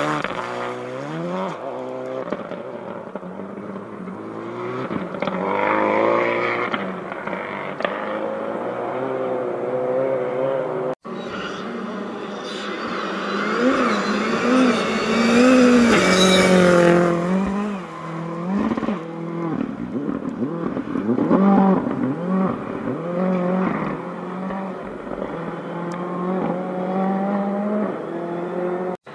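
Rally cars at full throttle on a snow-covered stage. First a Subaru Impreza hatchback's engine pulls away through gear changes and fades. After a brief break, a second rally car approaches, its revs climbing and dropping sharply through shifts and a bend, loudest as it comes close.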